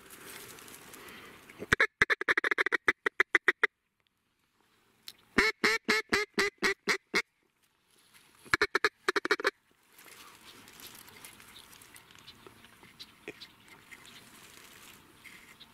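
Three quick runs of loud, evenly spaced duck quacks, about five a second, with short silent gaps between them; a faint steady hiss follows.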